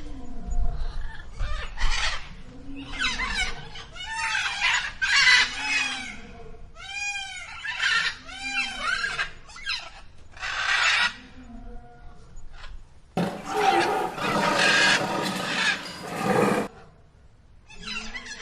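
Calls of domestic fowl: a string of separate cries, each rising and falling in pitch. About 13 s in comes a louder harsh, rasping call that lasts roughly three seconds.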